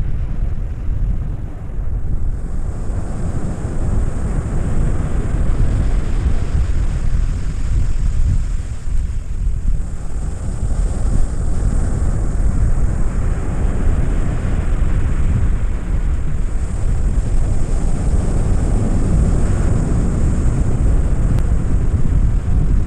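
Wind buffeting the microphone with a steady deep rumble, over the wash of surf breaking on the beach.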